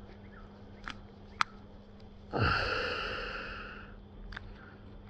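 A person's long sigh, a loud breathy exhale starting a little over two seconds in and fading away over about a second and a half. Two sharp clicks come before it.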